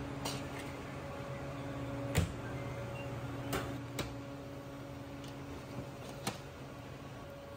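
A few sharp metal clanks and knocks as a sheet pan on a wire rack is pushed into a commercial countertop oven with steel tongs and the oven door is shut, the loudest knock about two seconds in. Under them runs a steady low hum from the kitchen equipment.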